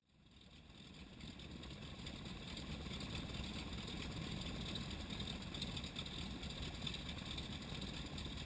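Floatplane's radial engine idling, a low steady drone that fades in over the first couple of seconds.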